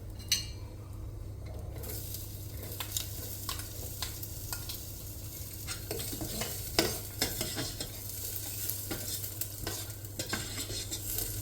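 Onion frying in hot oil inside an electric kettle: a sizzle sets in about two seconds in, with a spoon clicking and scraping against the kettle as it is stirred.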